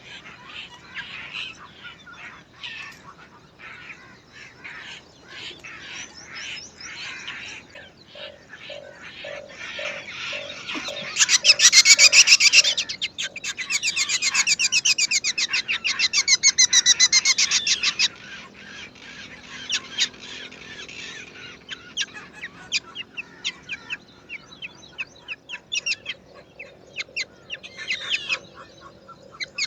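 Black drongo nestlings begging in the nest with rapid, shrill repeated calls, loudest in two stretches near the middle, amid scattered short chirps.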